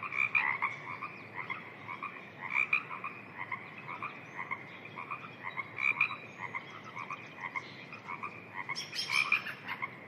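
A chorus of many frogs croaking in overlapping, rapidly repeated calls, with a brief denser, sharper rattle about nine seconds in.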